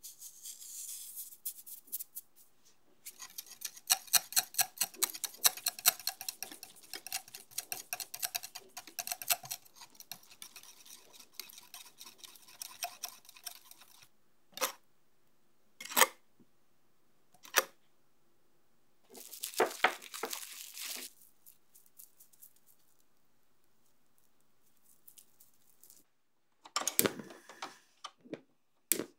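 A small wire whisk beats strawberry puree in a glass bowl, its wires clicking rapidly against the glass. Near the end, a tabletop cassette gas stove is turned on and the burner lights.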